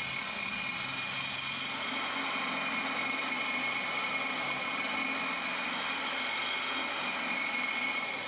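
Corded electric drill running steadily, spinning a homemade flail of sanding drums on a length of bicycle chain inside a cast exhaust section, sanding down the rough casting seam on its inner wall.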